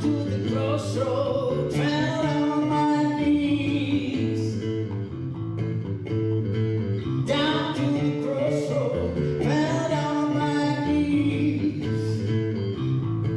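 A pop song: a singing voice over guitar and a bass line moving in steady notes.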